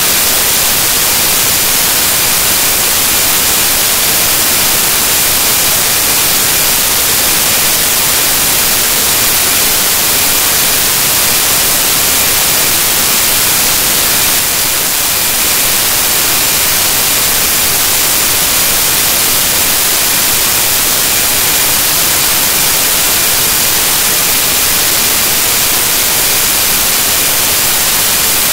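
Loud, even static hiss like white noise, heavier in the treble, from a corrupted recording. Loudness dips slightly for a moment about halfway through.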